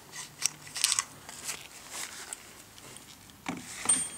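Small clicks and scrapes from a key unscrewing the stone mount of a Wintersteiger Discman ski edge sharpener as its parts are handled, with two louder knocks near the end.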